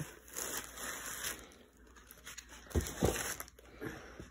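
Foam packing pieces and a plastic-wrapped laptop being handled: soft rustling and scraping, with two dull bumps about three seconds in.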